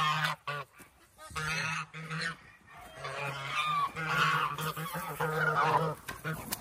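Domestic geese honking in repeated runs of calls while crowding for food.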